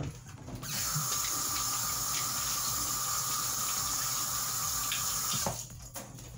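Kitchen faucet running steadily into a stainless steel sink as hands are rinsed under the stream; the water comes on about a second in and is shut off sharply near the end.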